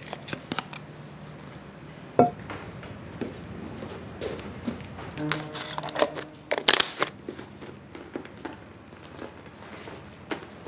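Chopsticks clicking and scraping against a clear plastic food container, with plastic crinkling as the container is handled and a scatter of sharp knocks, the loudest about two seconds in and again near seven seconds.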